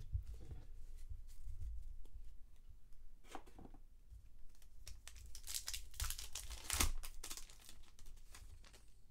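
Plastic crinkling as trading cards are handled, in short bursts about three and a half seconds in and again between about five and a half and seven seconds in, over soft handling noise.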